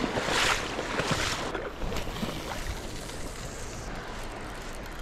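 Ocean surf washing onto the beach with wind, a rush that swells about half a second in and then settles to a steady hiss.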